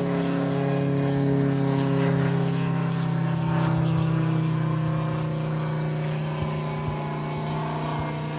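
Moki 400 cc radial engine of a half-scale Gee Bee R2 model airplane in flight, running steadily; its pitch and loudness fall slightly as the plane moves away.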